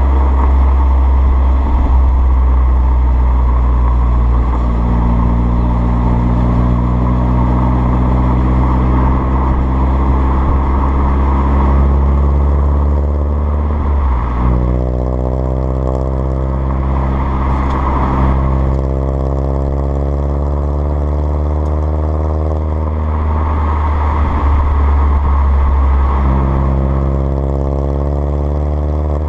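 Exhaust note of an Alfa Romeo Brera S 2.2's four-cylinder petrol engine on the move, heard at the tailpipes through a stainless steel cat-back system with the centre silencer removed. It is a loud, steady low drone that briefly breaks and settles at a new pitch about halfway through and again near the end.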